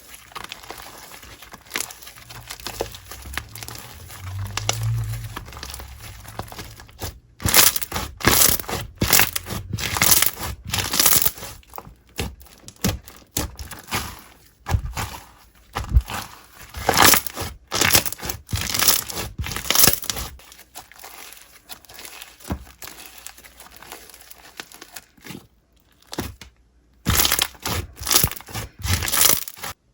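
Slime being squeezed and pressed by hand, giving repeated bursts of crackling and crunching, with a quieter stretch about two-thirds of the way through.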